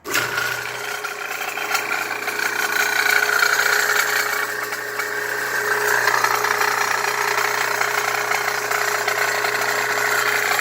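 Homemade belt sander driven by a half-horsepower electric motor, switched on and running: it starts abruptly and runs with a steady hum, the belt whirring and rattling over its wooden rollers.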